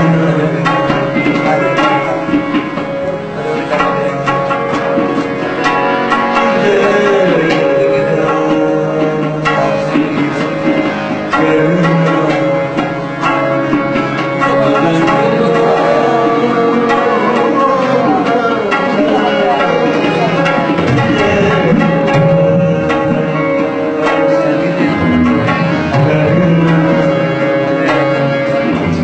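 Tabla playing in live music, with a steady held note running under the drumming.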